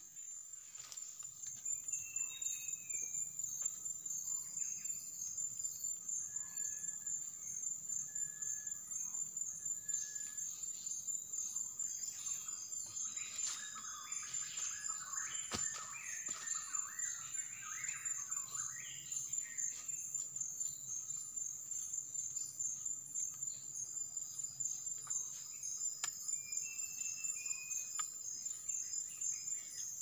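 Forest dawn chorus: a steady, high-pitched, fast-pulsing insect trill, with short whistled bird calls scattered throughout and a burst of busier bird chatter around the middle.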